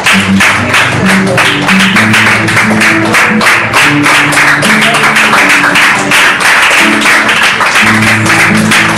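Worship song music: held bass notes that change every second or so, under a fast, even beat of sharp strokes.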